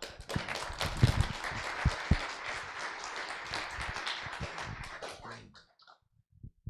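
Congregation applauding, a dense patter of many hands that dies away about five and a half seconds in, with a few low thumps in the first two seconds.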